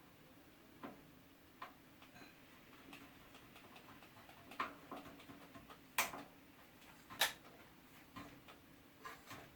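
Scattered light clicks and knocks, the loudest a little after seven seconds, as a mountain bike is rocked back and forth with its Shimano XT front disc brake lightly applied. The brake does not squeal, a sign that its pads, sanded to remove glazing, and its cleaned rotor now grip quietly.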